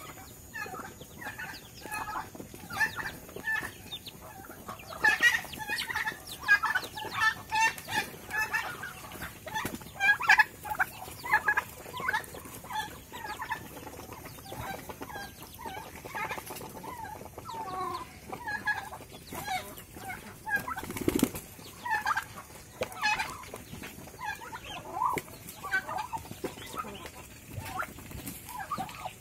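Poultry clucking in short, repeated calls throughout, with wing flaps and scuffling as an Ayam Cemani chicken and a turkey fight.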